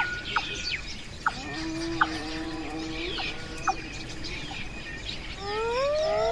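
Wild birds chirping and calling over a natural ambience: many short, quick chirps and a held steady note. About five and a half seconds in, a louder rising animal call joins them.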